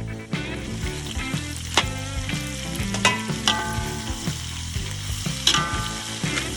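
Chicken frying and sizzling in a pan while it is stirred, with several sharp clicks of the utensil against the pan.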